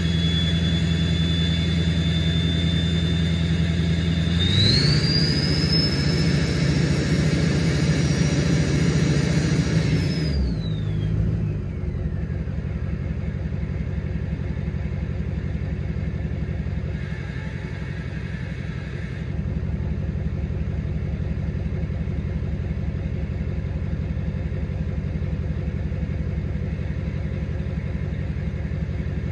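2007 LBZ Duramax 6.6-litre V8 turbodiesel with a KBD 63.5 mm ten-blade billet-wheel turbo and an open 5-inch axle-dump exhaust, running with a steady high turbo whistle over the engine. About four seconds in the engine revs up and the whistle rises sharply in pitch, holds for about five seconds, then both wind down together as it drops back to a steady idle.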